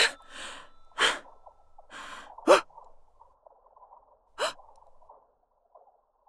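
A series of short, sharp gasps and breaths, about a second apart. The loudest comes about two and a half seconds in and drops in pitch.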